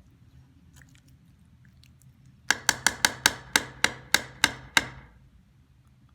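About ten sharp metallic taps in quick succession, roughly four a second, each with a brief ringing tail. They come from cookware or a utensil being knocked while food is set up to heat over a small flame.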